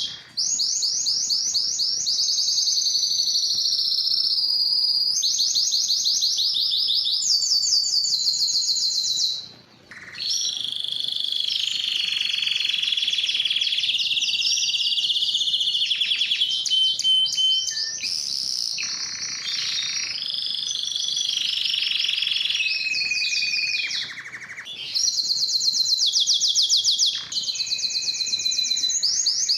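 Spanish timbrado canary singing a long song of rapid, high trills, each run of repeated notes held for a second or a few before switching to another, with a brief pause about ten seconds in.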